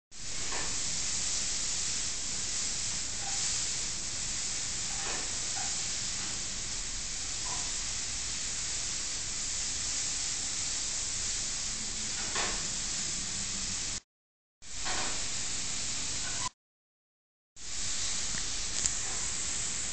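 Steady high hiss, cutting out to dead silence twice for about half a second and a second in the second half, with a few faint brief sounds in the background.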